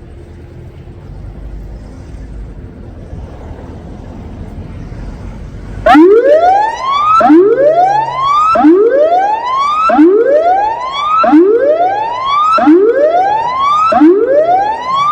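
Electronic tsunami warning siren cluster sounding its test warning tone. After about six seconds of low rumbling background noise it starts suddenly and very loud, each whoop rising steeply in pitch and then cutting off, repeating about every 1.3 seconds.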